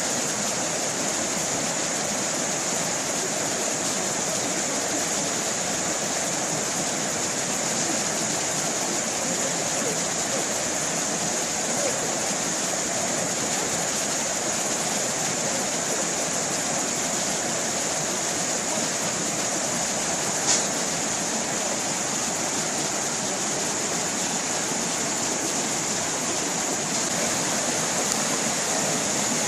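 Forest stream running steadily over rocks, a continuous rushing splash of water, with one brief sharp click about two-thirds of the way through.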